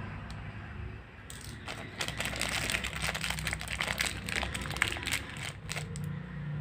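Thin clear plastic packaging bag crinkling as a hand rummages in it to take out a small plastic part, starting about a second in and going on for several seconds.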